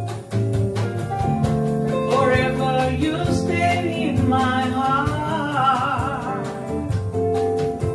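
MPB and bossa nova music: guitar and bass chords under a voice holding a wavering melody without clear words, which rises in from about two seconds in.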